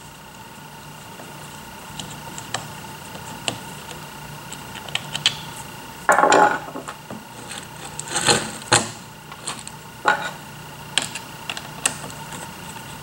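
Hand assembly with a screwdriver on an HDPE plastic robot base plate: scattered clicks and small knocks of tool and parts, with louder clatters about six seconds in and again around eight to nine seconds. A faint steady hum runs underneath.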